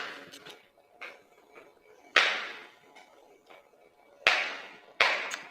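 Sharp plastic clacks as a small screwdriver works the snap-lock plastic housing of an LED bulb apart: one loud clack about two seconds in and two more close together near the end, with faint ticks between.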